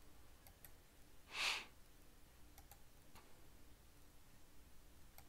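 A few faint computer mouse clicks as the circle frame tool is picked and a circle is drawn, with a short breathy puff of noise into the microphone about a second and a half in.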